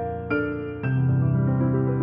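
Calm background music led by piano-like keyboard notes that ring on, with a deep low note about a second in.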